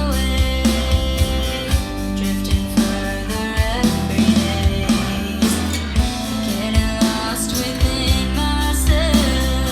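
Recorded song played back for a DAC listening comparison: a voice singing over guitar and drums with a steady beat.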